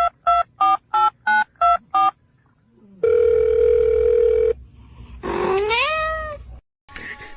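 Phone keypad tones dialing a number, about three beeps a second for about two seconds, then a steady phone tone for about a second and a half. A single cat meow follows, rising and then falling in pitch.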